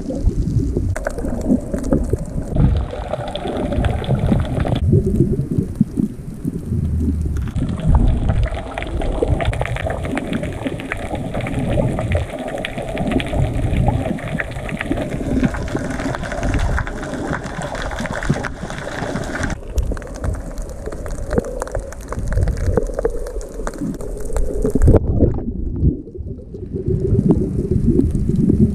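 Muffled underwater water noise picked up by a submerged camera: a low rumbling and sloshing of moving water, with a thin hiss that switches abruptly on and off a few times.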